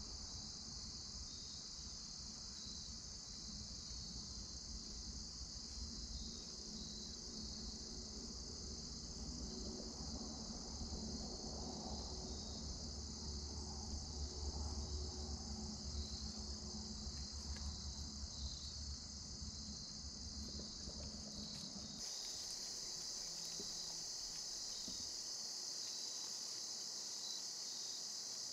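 Crickets chirping in a steady, high-pitched chorus. A low rumble lies under it until about three quarters of the way through, where it stops suddenly.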